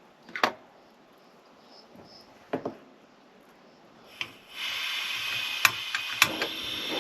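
Portable gas camping stove being lit: a few separate sharp clicks, then about four and a half seconds in the burner catches and hisses steadily, with a few more clicks over the hiss.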